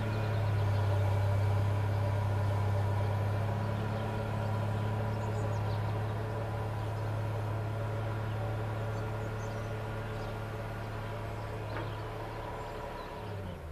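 Volvo L60E wheel loader's diesel engine working steadily while packing a maize silage clamp: a steady drone that fades slowly. The engine note drops right at the end.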